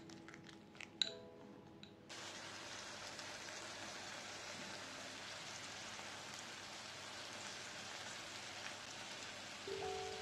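A metal fork clinking against a glass bowl as grated potato and egg are stirred, then from about two seconds in a steady sizzle of oil in a frying pan under a frying grated-potato cake.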